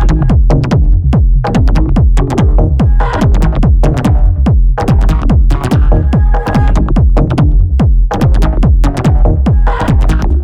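Electronic dance music: a loud techno track driven by a fast, steady kick drum with heavy bass and percussion.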